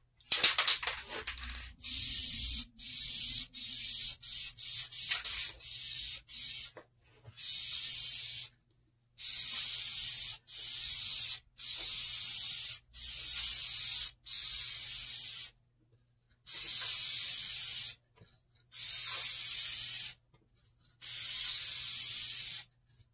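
Aerosol can of vinyl and fabric paint spraying a second coat onto a vinyl car seat: a string of hissing bursts, short and quick in the first few seconds, then about a second long each with brief pauses between.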